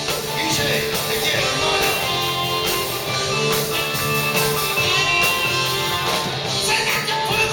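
Hard rock band playing a song, with guitars and a singing voice.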